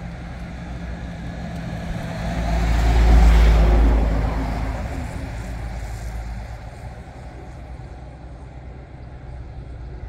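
A car passing close by: its engine and tyre noise swells to a peak about three seconds in, then fades away over the next few seconds.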